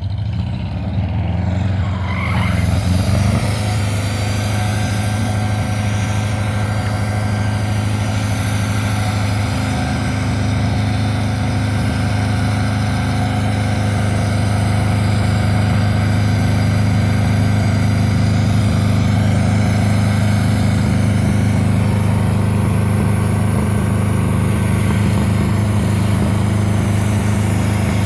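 Sawmill machinery running: a steady low engine drone with a continuous hiss above it, building up over the first few seconds and then holding steady.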